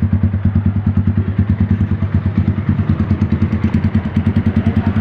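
Kawasaki Z250 motorcycle engine idling through an aftermarket SC Project muffler on a custom 51 mm elbow pipe, a loud, steady exhaust note with an even, rapid beat of pulses.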